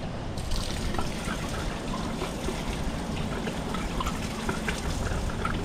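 Water running from an outdoor beach rinse-station tap, splashing and trickling onto the concrete; the flow starts about half a second in.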